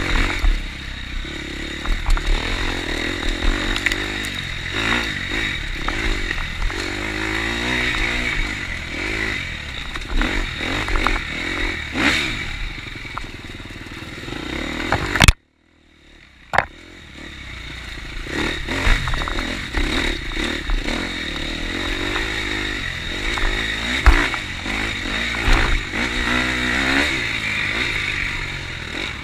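KTM 250 XC-F single-cylinder four-stroke dirt bike engine revving up and down under load, with clattering and knocks from the bike over rough ground. About halfway through, a sharp bang is followed by the sound cutting out for about a second before the engine returns.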